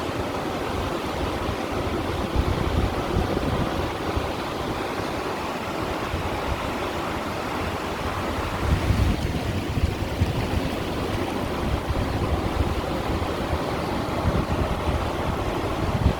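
Sea waves washing against shoreline stones, a steady rushing of water that swells louder now and then, with low wind rumble on the microphone.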